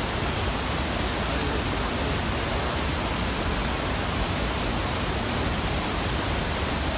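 Steady rushing of whitewater rapids pouring over boulders in a steep river.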